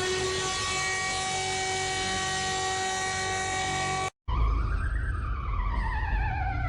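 An emergency siren holds one steady pitched tone, then cuts off abruptly about four seconds in. A second siren starts at once, its pitch slowly falling and rising in a wail over a low rumble.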